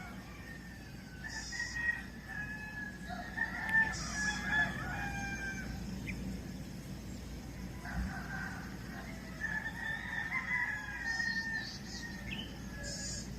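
Roosters crowing, one long crow in the first half and another in the second half, with short high chirps of small birds over them.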